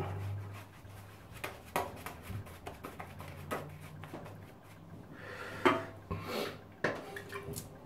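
Omega shaving brush painting lather onto a bald scalp: soft, scratchy bristle rubbing with a few scattered clicks, louder for a moment about five to six seconds in.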